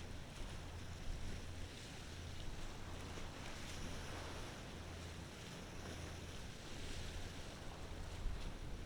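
Low, steady drone of a ferry's engines heard across the water, under a hiss of wind and small waves.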